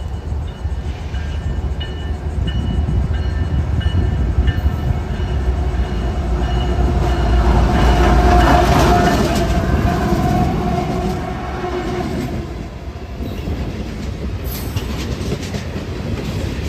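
CSX freight train with a diesel locomotive approaching and passing close by. Its deep engine rumble builds to its loudest about eight seconds in as the locomotive goes past, then freight cars roll by with rhythmic wheel clatter on the rails. A crossing warning bell rings evenly through the first several seconds.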